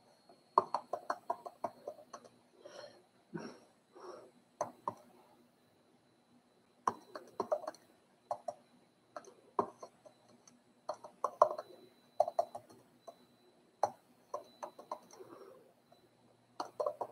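Typing on a computer keyboard: bursts of quick key clicks, several clusters, separated by pauses of a second or more.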